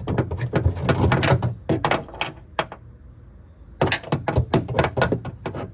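Ratchet wrench with a 10 mm socket on an extension clicking in quick runs while backing out a bolt, pausing for about a second midway.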